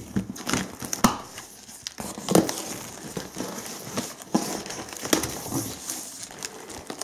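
Cardboard shipping box opened by hand: flaps pulled open and folded back, with crinkling plastic wrap and tape and several sharp knocks of cardboard.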